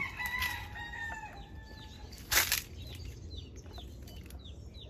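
A rooster crows, its long held call trailing off over the first two seconds. About two and a half seconds in comes one short, loud rustling burst, then small birds chirp faintly.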